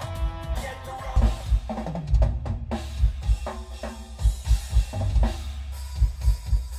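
A drum-heavy song played loud through a truck's stereo, its deep kick-drum hits carried by two Kicker L7T shallow-mount 10-inch subwoofers in sealed under-seat enclosures, heard inside the cab. The kick and snare hits come in a steady, punchy beat.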